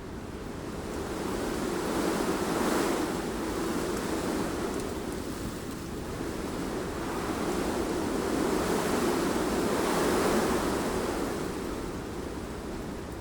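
Wind blowing in gusts, a rushing noise that swells twice, about three seconds in and again about ten seconds in, easing off in between and toward the end.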